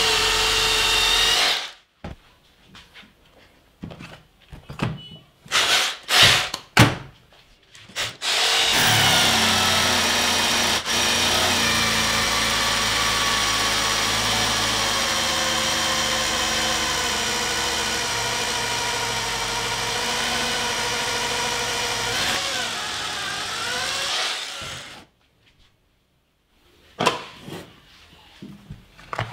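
Bosch GBH 24VRE cordless rotary hammer drill boring into a concrete block: it runs steadily and stops about two seconds in, gives several short bursts, then runs continuously for about sixteen seconds, dropping slightly in pitch just before it stops. A few knocks follow near the end.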